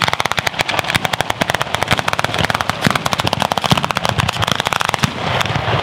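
Ground firecracker battery (batteria alla bolognese) going off as a fast, continuous string of sharp bangs, many per second, starting abruptly. About five seconds in the separate bangs give way to a steadier rushing noise.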